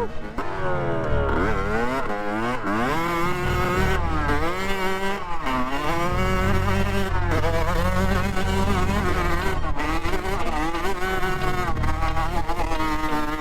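Dirt bike engine revving hard, its pitch climbing and dropping again and again as the throttle is worked and the gears change on a trail run.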